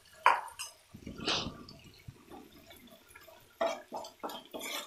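Wooden spatula stirring and scraping through a thick, sticky sauce in a nonstick frying pan, in wet strokes, with a quick run of short strokes near the end.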